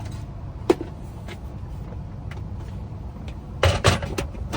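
Tools being handled at a locksmith's workbench: a sharp click about a second in, then a cluster of clattering knocks near the end, over a steady low hum.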